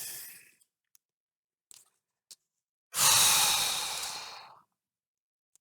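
A long breathy sigh, about three seconds in, fading out over a second and a half.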